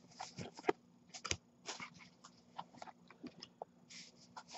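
Faint, scattered clicks and rustles of trading cards being slid and flipped through by hand, over a faint steady low hum.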